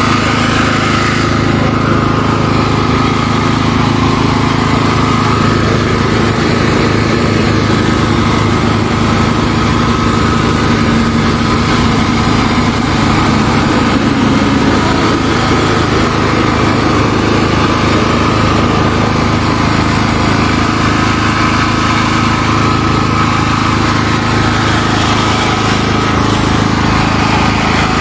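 A small engine running steadily, with an even low hum and a thin steady whine above it.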